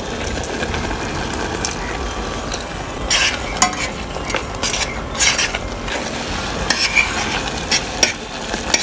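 Thick orange marmalade bubbling in a pan as it is stirred, with the utensil scraping the pan bottom several times in the second half. It is cooked with sugar and no added water, and is stirred constantly to keep the sugar from burning.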